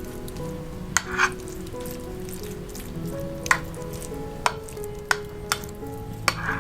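Food frying in a pan, with a utensil knocking and scraping against the pan several times as it is stirred.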